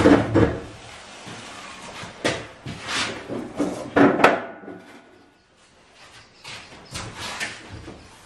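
Hollow plastic clunks and knocks from a wheeled plastic waste bin and a cut-down bin section on wheels being handled; the loudest come near the start and about four seconds in, with lighter knocks later.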